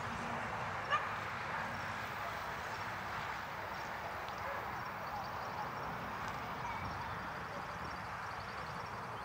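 Steady, distant roar of a Boeing 747-400 freighter's four turbofan engines as it climbs out after takeoff, with one sharp click about a second in.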